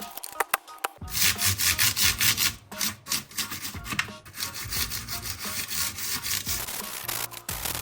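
Rapid back-and-forth scrubbing strokes on a mechanical keyboard being cleaned, starting about a second in and stopping shortly before the end.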